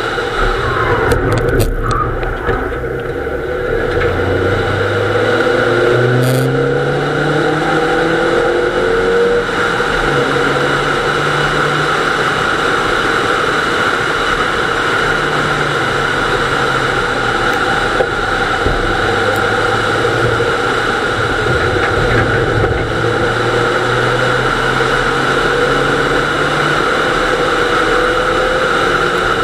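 Nissan Almera GTi's 2.0-litre four-cylinder engine heard from inside the cabin, accelerating hard and climbing through several gears, each note rising then dropping at the shift, before running on at speed with further rises and falls.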